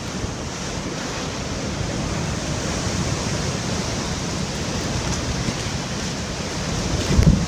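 Typhoon downpour and strong wind making a steady rushing noise, with gusts of wind buffeting the microphone near the end.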